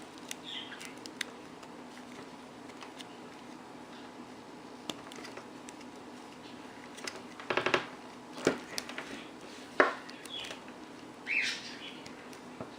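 Hard plastic vacuum hose connector parts being handled and fitted together: scattered light clicks and knocks, a quick run of rapid clicks near the middle and a sharper single click a little later, over a steady low hum.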